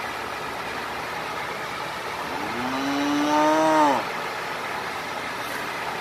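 A cow mooing once: one long call about a second and a half long, rising at the start, held steady, then dropping off, over steady background noise.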